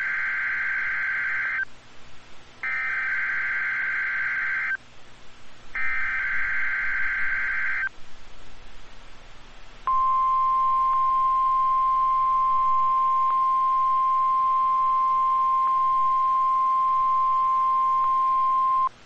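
NOAA Weather Radio weekly test: three bursts of SAME digital header data, each a buzzing warble about two seconds long and about a second apart. About ten seconds in, the steady single-pitch 1050 Hz weather radio warning alarm tone starts and holds for about nine seconds before cutting off.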